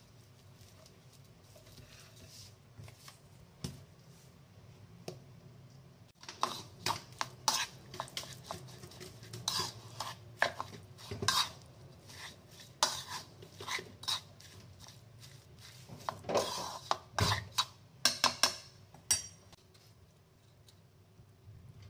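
Minced prawn and spring-onion filling being mixed by hand in a ceramic bowl: a busy run of irregular clicks, knocks and wet squishes against the bowl, starting about six seconds in and stopping a few seconds before the end.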